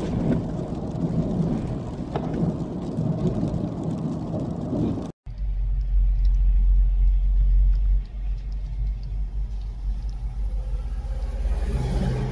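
Car driving on a wet road in rain, heard from inside the cabin as a steady noise of tyres and rain. About five seconds in this cuts to a deep low rumble, strongest for the first few seconds and then settling, typical of wind buffeting the microphone.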